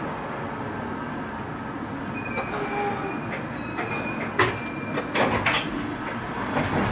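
Interior of a London Underground 1973 Stock train car running on the Piccadilly line: a steady rumble from wheels and running gear, with a few brief squealing tones partway through and a series of sharp clunks and knocks in the last few seconds.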